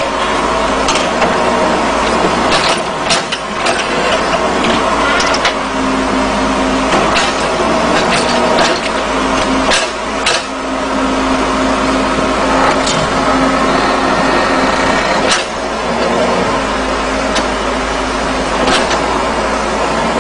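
Backhoe loader's diesel engine running under hydraulic load as the backhoe arm and stabiliser leg lever the machine up, with a steady hum that comes and goes and scattered sharp clanks.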